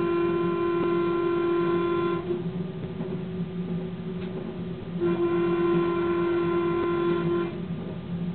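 Train horn sounded from the cab in two long blasts of about two seconds each, roughly three seconds apart, over the steady running rumble of the train.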